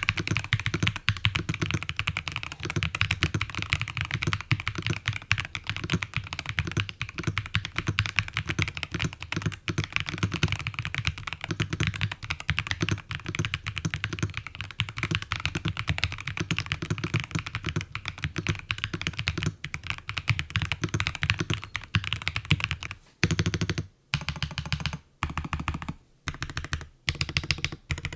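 Typing on an LTC NB682 Pro 65% mechanical keyboard: a fast, dense stream of key clicks that breaks into short bursts with brief pauses over the last few seconds.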